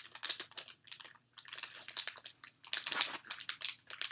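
Plastic candy wrappers crinkling in quick, irregular crackles as individual chewy soda candies are picked out and unwrapped, with a short pause about a second in.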